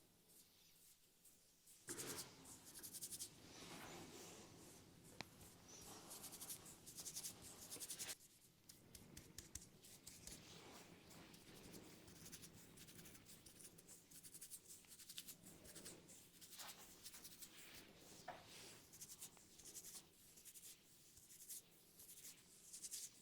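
Faint, close scratching and rubbing of fingers working through hair and over the scalp during a head massage, starting about two seconds in.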